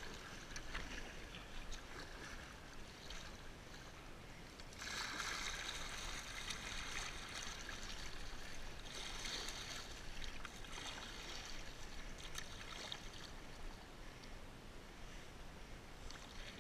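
Water rushing and lapping along a paddled kayak's hull at sea, with small splashes and drips; the rush of water grows louder about five seconds in.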